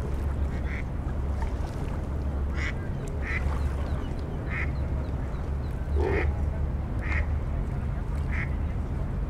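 Mallard duck quacking: about eight short calls, spaced roughly a second apart, over a steady low rumble.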